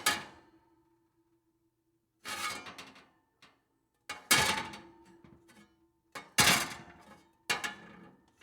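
Metal oven pans clanking, about five separate knocks a second or two apart. Each knock leaves a short ringing tone that dies away.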